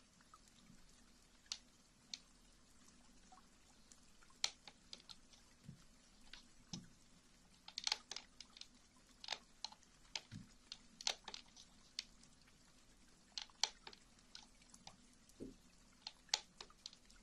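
Sparse, irregular soft clicks and taps close to a sensitive microphone, a few with a dull low thump, over a faint low hum.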